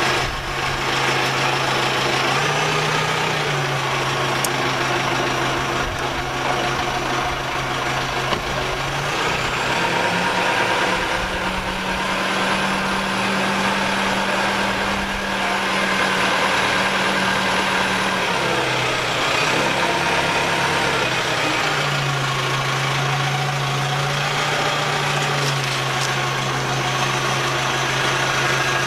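Sellick utility tractor's engine running, speeding up about a third of the way in, holding the higher speed for several seconds, then settling back down, with another brief rise later. A faint high whine rises and falls with the engine speed.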